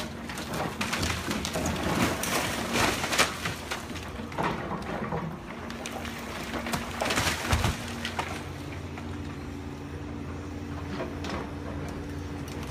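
Hydraulic excavator engine running steadily while its bucket knocks and scrapes at the top of a masonry wall, with crunching and clattering of breaking, falling rubble over the first eight seconds or so; after that mostly the engine's steady drone.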